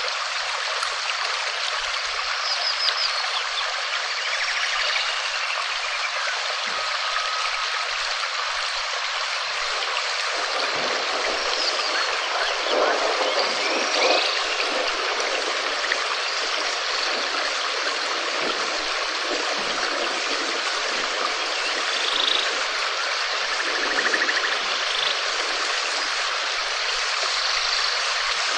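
Steady rain falling, an even hiss of water, with faint high chirps here and there.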